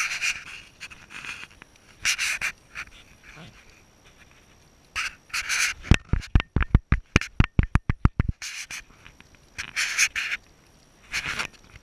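A puppy panting in short bursts. A quick run of sharp knocks, about seven a second, comes for a couple of seconds midway.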